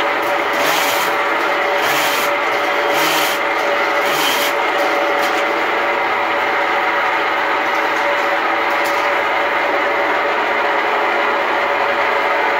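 K-60 sectional sewer machine running steadily with a constant hum, its spinning 7/8-inch cable rubbing and rasping as it is worked through the drain line. A harsher rasp comes about once a second over the first few seconds.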